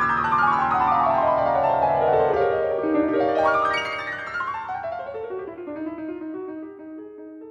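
Piano music: quick runs of notes falling in pitch, another run about three seconds in, then a few slower notes as it fades out.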